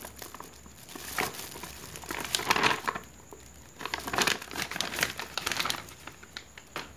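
Plastic bag of glutinous rice flour crinkling and rustling in irregular bursts as it is shaken and squeezed empty.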